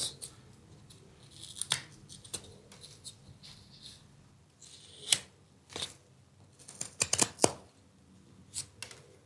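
Whittling knife cutting into wood: a series of short, crisp slicing strokes at irregular intervals, with a quick cluster of several about seven seconds in.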